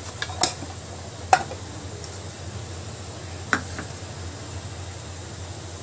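Cumin seeds sizzling in hot oil in an earthenware pot, with a few sharp crackles or clicks over the steady sizzle.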